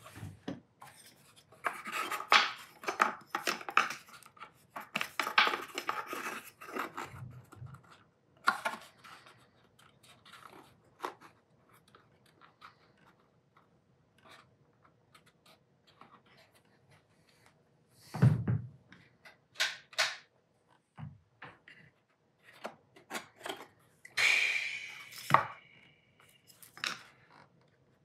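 Workbench handling noises of tools and parts: irregular clicks, taps and rustling, with a heavier thump about two-thirds of the way through and a denser burst of noise near the end.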